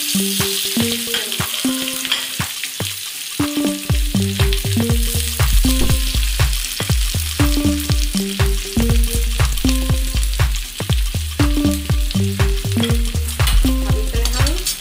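Sliced onions and garlic sizzling in hot mustard oil in a kadhai, with a perforated steel spoon clicking and scraping against the pan as it stirs. Background music with a repeating melody plays over it, and a bass line comes in about four seconds in.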